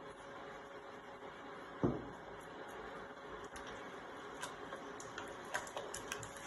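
A wooden spoon stirring thick risotto in a stainless steel pot, with light ticks and taps against the pot that come more often in the second half. There is a single dull thump about two seconds in, over a faint steady hiss.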